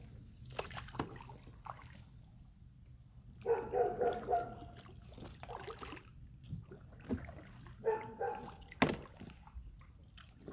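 A dog barking from the bank in two bouts about four seconds apart, its warning at a stranger passing by. A few sharp knocks fall between the bouts.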